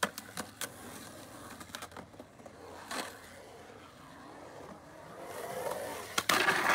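Skateboard wheels rolling on a concrete bowl, with a few sharp clacks of the board; the rolling grows louder toward the end and a loud clack comes just before the end.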